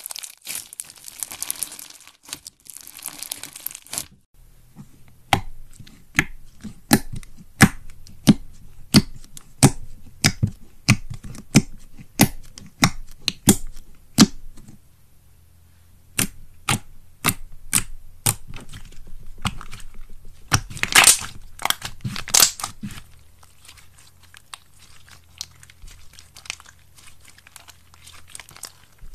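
Slime being handled. First comes a dense crinkly crunching as bead-filled slime is squeezed. After about four seconds it gives way to sharp pops and clicks, one or two a second, as a finger presses into thick slime in a tub and pockets of trapped air pop. It goes quieter near the end as the slime is stretched out.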